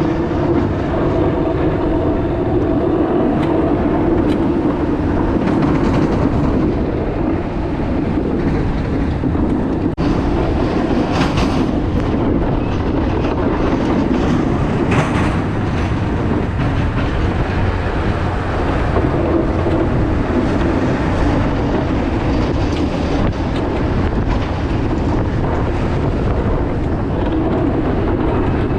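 Snow plow truck running and plowing, a loud steady rumble and clatter with brief hissing surges about a third of the way through and again around the middle.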